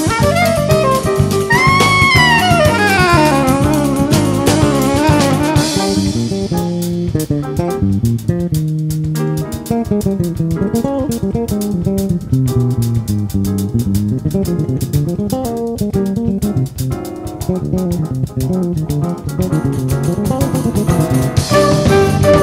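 Instrumental Brazilian jazz-fusion with drum kit and bass guitar. A lead instrument slides and wavers in pitch for the first few seconds, then the band plays a busier passage with constant cymbal work over a moving bass line.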